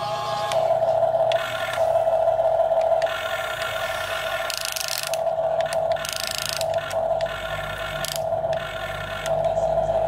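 Electric motors and gearboxes of a Huina remote-control toy excavator whining as the arm and bucket are worked. The whine runs on one steady pitch, swelling and fading every second or so as functions start and stop.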